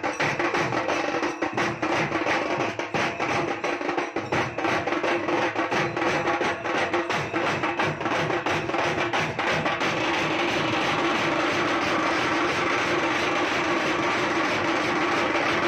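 A band of drums, large cylindrical bass drums and smaller side drums, beaten with thin sticks in a fast, dense rhythm. From about ten seconds in, the beating turns into a steady continuous roll.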